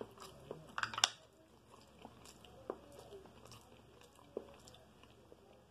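A person chewing food close to the microphone: faint, scattered wet clicks and smacks of the mouth, the loudest about a second in.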